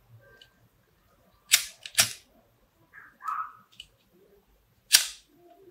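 Three sharp clicks from a disposable lighter being handled while a ribbon edge is heat-sealed, two close together and a third a few seconds later, with a brief soft rustle of fingers on ribbon between them.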